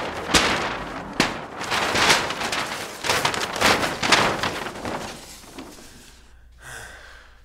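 A paper studio backdrop crashing down and crumpling as a man falls into it: a run of loud rustling, crinkling swells with a couple of sharp knocks in the first second or so, dying away after about five seconds.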